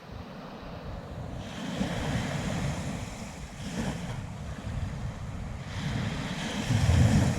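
Sea waves washing in on a sandy beach, swelling and easing every couple of seconds, with wind rumbling on the microphone.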